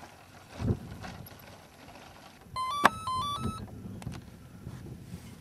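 Electronic beeps from an electric RC model's speed controllers as the flight battery is connected: a quick run of tones stepping up and down in pitch for about a second, with a sharp click among them. A few low thumps from handling the model come before and after.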